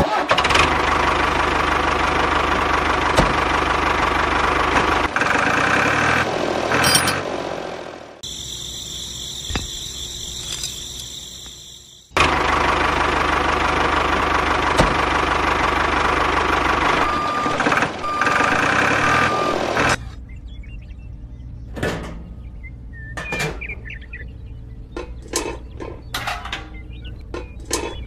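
A motor engine running steadily. It fades out about a third of the way through, comes back suddenly and then cuts off about two-thirds through. After that there are only scattered light taps and clicks.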